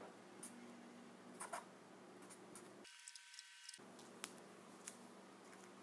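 Faint scratches of a felt-tip marker writing on paper, a few short strokes scattered over a low steady room hum.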